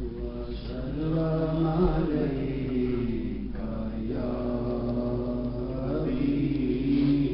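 Men's voices chanting a devotional zikr recitation in long, drawn-out phrases, with a short break about three and a half seconds in.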